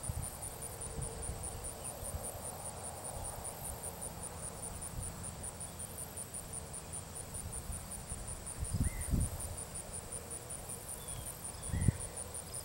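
An insect chirping steadily, a high-pitched pulse repeating about five times a second, over a low outdoor rumble. Two brief low rumbling bumps, about nine and twelve seconds in, are the loudest sounds.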